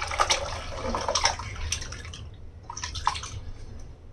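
Split milk, soft chhena curds in their whey, poured into a cloth-lined strainer: liquid splashing and pouring, with the whey draining through the cloth. The splashing dies down towards the end.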